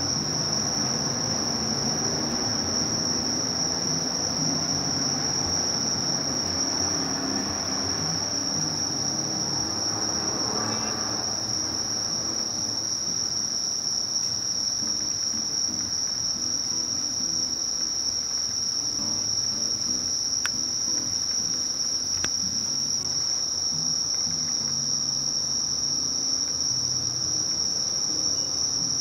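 Singing insects, crickets or katydids, giving one unbroken, steady high-pitched trill, with a faint low rumble of background noise beneath.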